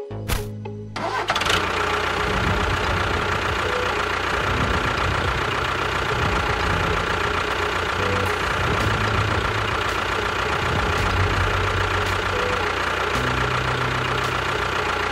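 A motor running steadily and loudly, starting abruptly about a second in and cutting off near the end.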